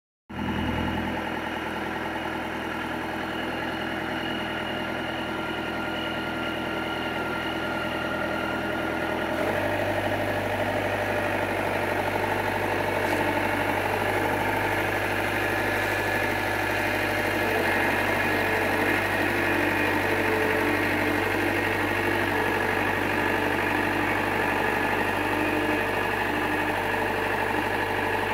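Engine of a Ditch Witch compact tractor with a backhoe attachment running steadily. About nine seconds in, its note changes and grows a little louder, then holds steady.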